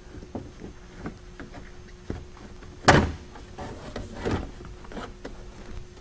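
Small metal clicks of a pry tool working the spring clip on a C4 Corvette rear hatch strut's ball joint, then one sharp snap about three seconds in as the clip pops off, followed by softer knocks and scrapes of handling the strut and hatch glass.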